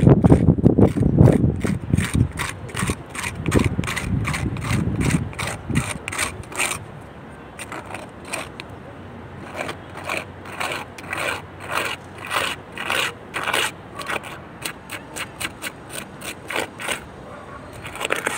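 Hand scraper rasping across a mossy flat roof in quick repeated strokes, about three a second, scraping the growth off the surface to prepare it for waterproof paint. Wind buffets the microphone with a low rumble through the first few seconds.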